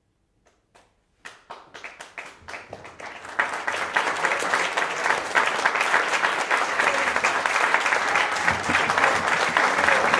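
Crowd applause that starts with a few scattered claps, thickens over the first few seconds, and settles into steady, dense clapping.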